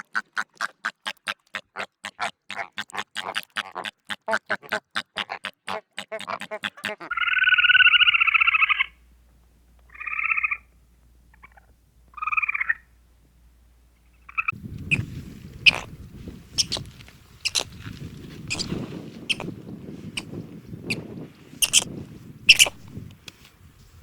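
A run of different animal calls. First comes a rapid train of pulsed calls, about four or five a second, lasting some seven seconds. Then a pitched call of about two seconds, two brief calls, and finally a low rustling noise with scattered sharp clicks.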